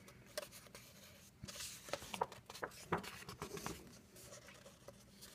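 Heavyweight paper pages of a coloring book being handled and turned: faint, scattered rustles and light taps.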